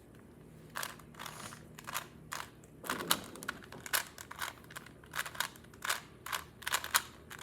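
Plastic clicking and clacking of a Rubik's brand cube's layers being turned by hand, in irregular runs of several clicks a second, as the white side is solved.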